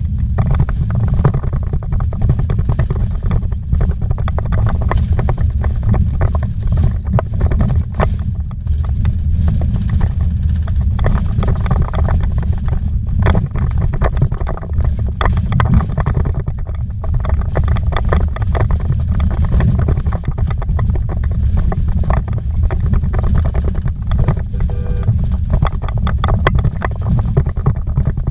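Vehicle driving on a rough dirt road, heard from inside the cabin: a loud, continuous low rumble from the tyres and suspension, with frequent knocks and rattles over the bumps and stones.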